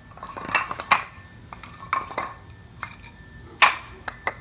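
A run of sharp clinks and knocks from wooden boards and screws being handled by hand while a stacked-board base is assembled, about seven in all with gaps between them. The loudest knock comes about three and a half seconds in.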